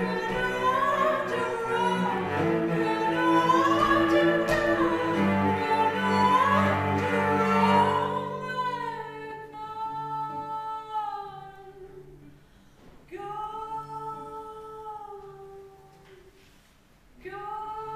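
A woman singing while bowing a cello. About eight seconds in, the music thins to a few long held notes, each bending up at its start, with short pauses between them.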